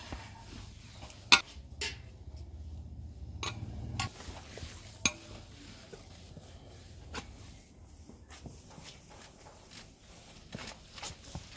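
Hands kneading and mashing crumbly chenna in a metal plate, with a number of sharp metallic clinks against the plate, the loudest about a second and a half in and another near five seconds. A low steady hum sits underneath.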